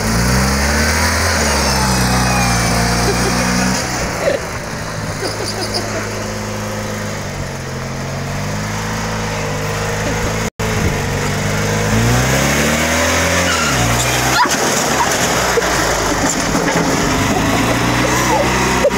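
Garden tractor engine running and revving up and down as it is driven hard. About fourteen and a half seconds in, a sharp crash as the tractor tips over, after which the engine is much fainter.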